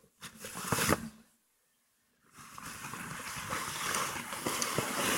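A train pulling in: a steady rushing noise with scattered clicks. The sound cuts out completely for about a second, then swells back in about two and a half seconds in.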